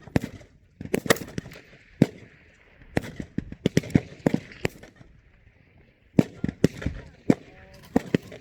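Rifle fire on a qualification range: a string of sharp shots at irregular spacing, about fifteen in all, with a pause of about a second near the middle.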